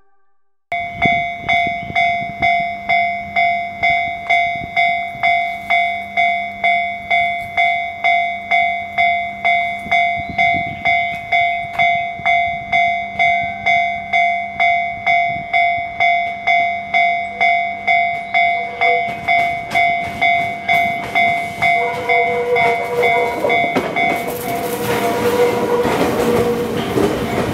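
A Japanese level-crossing warning bell ringing over and over, about one and a half strikes a second, while a JR East 205 series 1100 electric train draws near. Its wheel and motor noise grows from about two-thirds of the way in, and the bell stops as the train passes close by with a loud rush.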